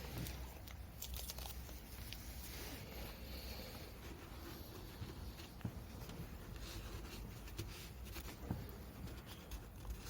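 Faint, scattered clicks, taps and scratching of small handling work, over a steady low hum.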